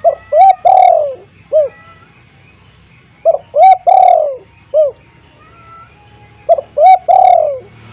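Spotted dove (tekukur) cooing loudly: three repeated song phrases about three seconds apart, each made of two quick coos, a long drawn-out coo and a short closing note.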